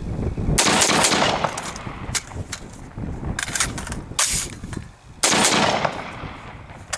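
Semi-automatic rifle shots from a Smith & Wesson M&P15 Sport II AR-15 in 5.56 NATO, fired singly a second or more apart during a reload drill. The loudest shots come about half a second in and just after five seconds, each followed by a ringing echo.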